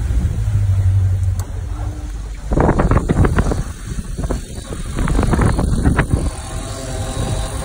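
Supra boat's inboard engine idling steadily. In the middle there is a louder stretch of rushing and knocking as the engine hatch is raised. Near the end the engine's even idle note comes through clearly from the open engine bay.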